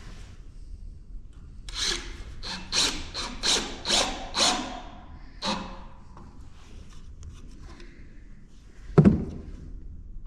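Hand-tool work on a plastic tube: a quick run of about seven rasping strokes, one more a second later, then a single sharp knock near the end.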